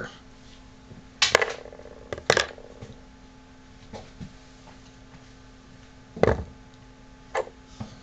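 Small metal lock-cylinder parts being handled and set down: a few sharp clicks and knocks, the clearest about a second in with a short metallic ring, another near two and a half seconds, and a heavier knock about six seconds in.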